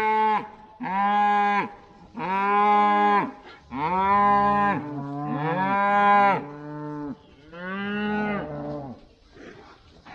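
Several cows mooing in turn, about six long calls of roughly a second each, two overlapping in the middle, as the herd comes up to the farmer's calling.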